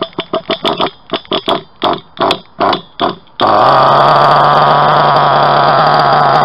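Reely Rex buggy's nitro engine being cranked in about a dozen quick, short bursts, then catching about three seconds in and running steadily at idle.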